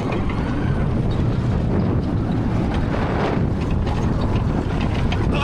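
Roller coaster in motion: wind rushing over the microphone over the steady rumble of the ride.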